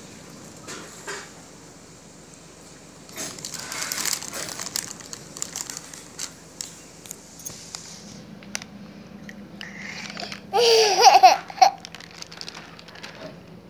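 Plastic snack packet crinkling as a small child handles it, a crackly run of rustles lasting several seconds. About ten seconds in, the child laughs briefly, the loudest sound.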